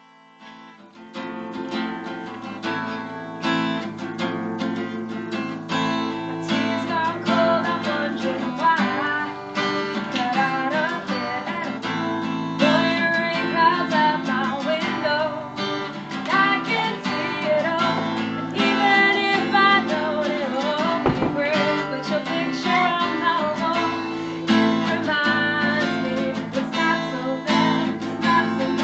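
Music led by a strummed acoustic guitar, starting about a second in.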